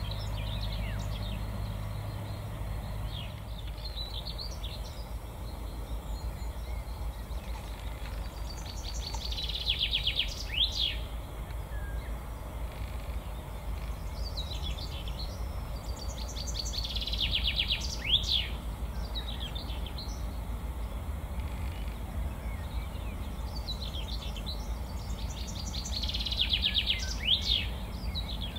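A songbird sings three short phrases, each a quick trill ending in a sharp downward flourish, roughly eight seconds apart. Under the birdsong runs a low steady rumble with a hum that fades in the first few seconds.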